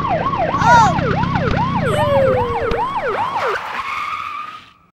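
Police siren sound effect in a fast yelping pattern, about two to three sweeps a second, over vehicle noise, with a falling screech about two seconds in; it fades out near the end.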